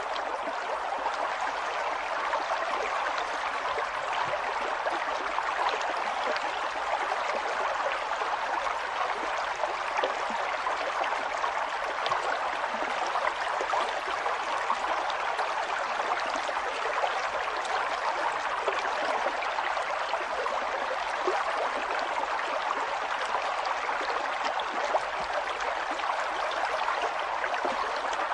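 River water flowing over stones, a steady rushing babble with many small splashes and gurgles.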